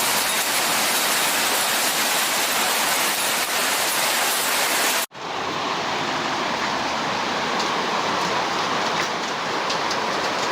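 Loud, steady rushing water noise from a torrential storm downpour and flood. It cuts off abruptly about five seconds in and picks up again with a similar rush, now with a few faint ticks.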